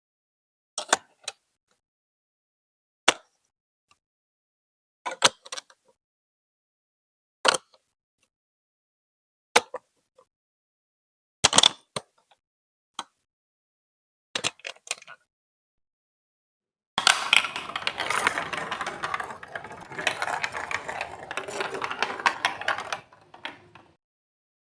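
Plastic Lego Duplo bricks clicking and snapping together, one or two sharp clicks every couple of seconds. About 17 seconds in, a continuous plastic rattle of marbles rolling through the Duplo block track runs for about six seconds and trails off.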